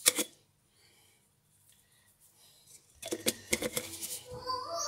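Small clicks and light rattles of spice jars being handled while dried herbs are sprinkled over meat in a steel pot. One click comes at the start, then a dead-silent gap, then a cluster of quick clicks over the last two seconds.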